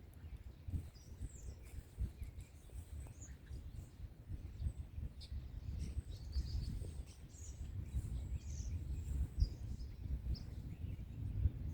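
Birds chirping in short, scattered calls over a steady low rumbling background noise.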